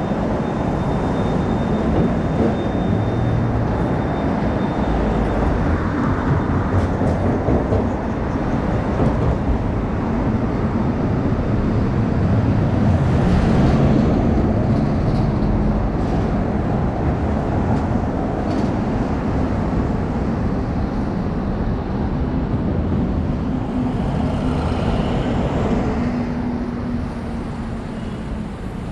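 City street traffic noise: a steady rumble of vehicles passing on an avenue.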